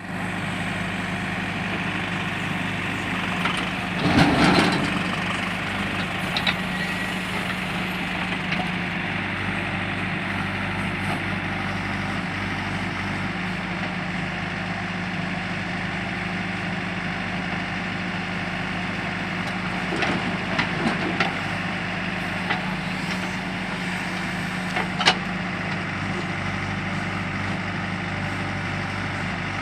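JCB backhoe loader's diesel engine running steadily with a low hum. A loud clatter comes about four seconds in, a few smaller knocks around twenty seconds, and a sharp knock near twenty-five seconds.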